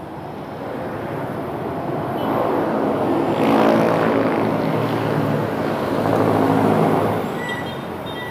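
A motor vehicle passing close by on the street: its engine and tyre noise grow louder over the first few seconds, hold, then fade near the end.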